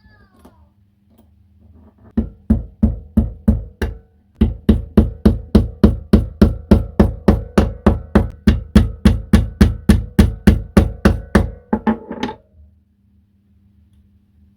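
Hammer tapping steadily on a 10 rupee coin, about four blows a second, each with a short metallic ring: a short run of strikes, a brief pause, then a longer run that stops abruptly.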